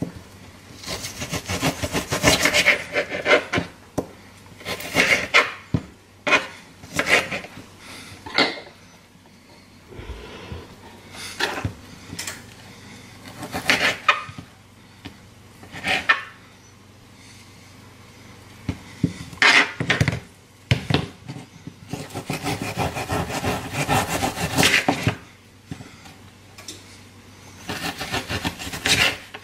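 Kitchen knife sawing through chicken breast and scraping on a cutting board, in irregular strokes: many short scrapes with a few longer runs of sawing.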